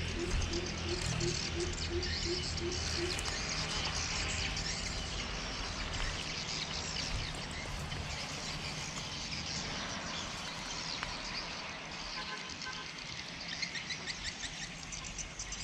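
Greater coucal calling: a run of short, evenly spaced low hoots, about four a second, that stops about three seconds in. High chirping of small birds goes on throughout.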